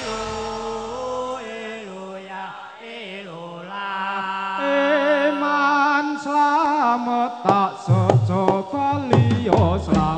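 Javanese music for a warok dance: a wavering sung melody over held instrument notes that step in pitch. Repeated drum strikes come in about seven and a half seconds in.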